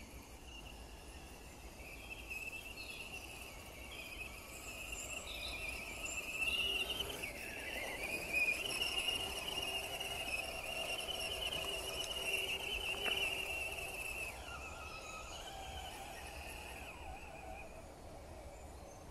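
MST CMX Jimny RC crawler's electric motor and geartrain whining as it drives, the pitch wavering and briefly dipping and rising again with the throttle, then fading near the end.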